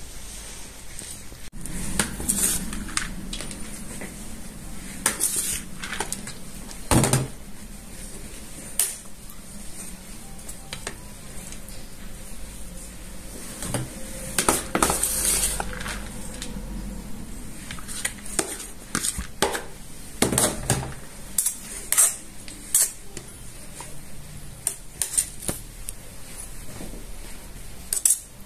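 A metal spoon clinking and scraping against a steel ring mould as steamed vermicelli is packed into it, in irregular knocks and scrapes with a few louder clanks scattered through.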